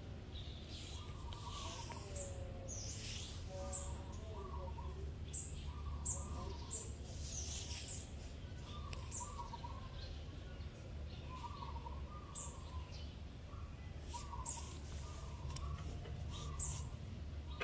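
Birds calling: a short chirping call repeated every second or two, with scattered higher chirps, over a steady low rumble.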